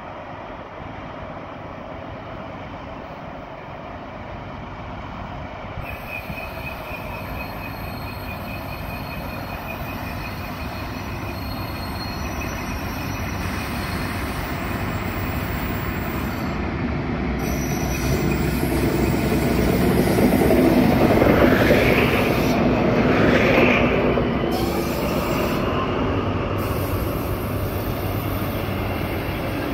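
A train approaching and passing, growing steadily louder for about twenty seconds to its loudest a little after the middle, then easing off, with a thin high whine running through it.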